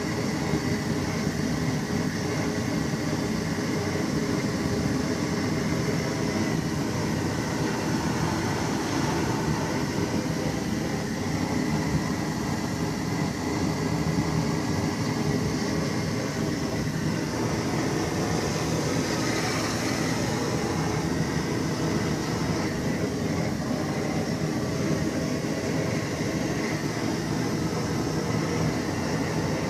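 MTZ-82 tractor engine running steadily in −7 °C cold during a cold start, a continuous, even engine sound with no change in speed.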